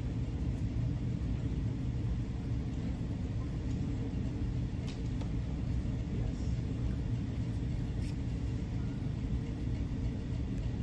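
Steady low rumble of a large metal building's ventilation, with a few faint clicks.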